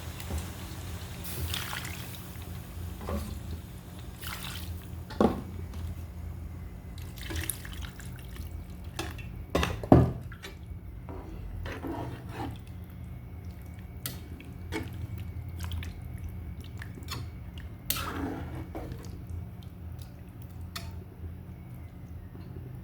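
Water being added to a pot of sautéed vegetables for curry gravy, with scattered splashes, drips and clinks, louder twice in the first half, over a steady low hum.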